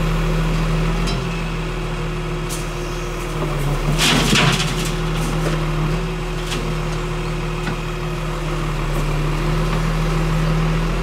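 Crane truck's engine running steadily, driving its loader crane's hydraulics. About four seconds in there is a short, loud burst of cracking noise, with a few single clicks at other moments, as the crane's grab tears at a hedge.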